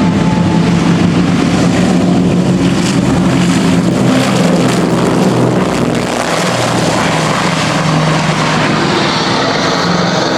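Lockheed Super Constellation flying by, its four Wright Cyclone radial piston engines and propellers giving a loud, steady drone, with a slight drop in level and pitch about six seconds in.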